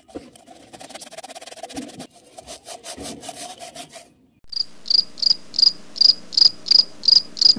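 A plastic cup twisted and pressed down into sand, with gritty scraping and crunching. About four and a half seconds in, a cricket starts chirping steadily, about three high chirps a second.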